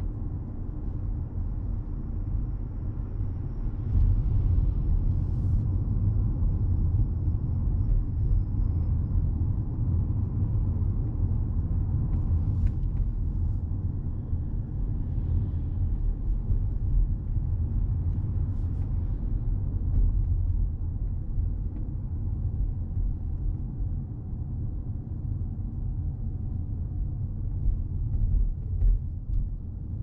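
Steady low rumble of road and tyre noise heard inside the cabin of a moving 210-series Toyota Crown Athlete hybrid. It grows a little louder about four seconds in, and a faint thin high tone runs through the first several seconds.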